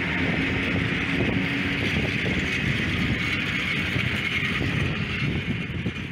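A pair of coupled ET22 electric freight locomotives rolling past at close range: steady wheel-on-rail rumble and hiss with a low hum from the running gear, fading in the last second as they move off.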